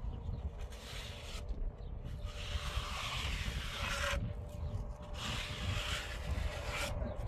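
Trowel scraping over cement in a few long strokes, each lasting a second or two, over a steady low rumble.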